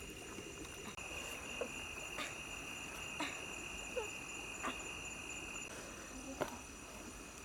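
Steady high insect chirring: one shrill tone stops about two thirds of the way through while fainter, higher insect tones carry on. Short squeaky calls falling in pitch come about once a second, and one sharp click sounds near the end.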